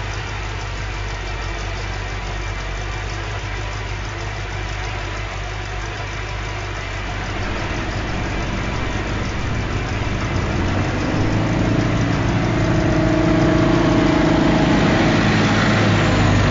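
Dog-catcher truck's engine running, a steady low hum that grows steadily louder through the second half as the truck draws close.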